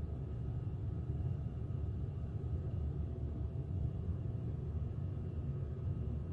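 A steady low rumble with no sudden events.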